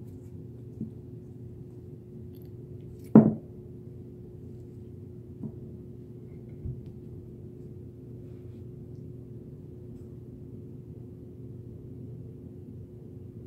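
Metal parts of a carbine recoil assembly being separated and set down on a towel: one sharp ringing clink about three seconds in, then a few soft knocks, over a steady low hum.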